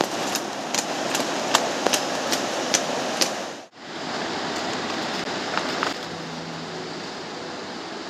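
Steady rush of a mountain river's flowing water, with sharp crackles and clicks over it for the first few seconds. The sound drops out briefly a little before halfway, then the water noise carries on slightly quieter.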